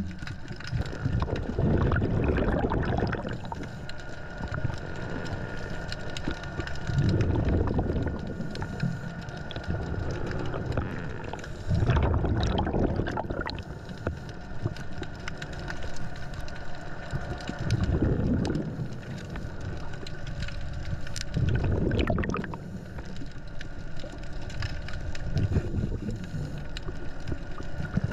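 Scuba diver breathing through a regulator underwater: exhaled bubbles gurgle out in bursts about every four to five seconds, with a faint steady tone between breaths.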